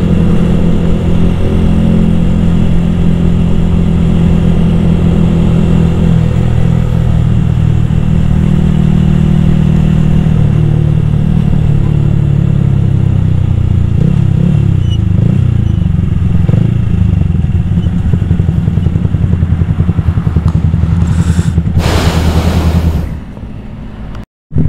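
Yamaha R15 VVA motorcycle's single-cylinder engine running at a steady cruise, its pitch wavering midway as the throttle changes. Near the end a rush of wind noise rises, then the engine sound drops off suddenly.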